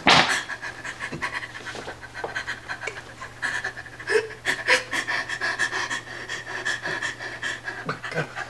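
A person panting heavily in short, quick breaths, over a steady high ringing tone.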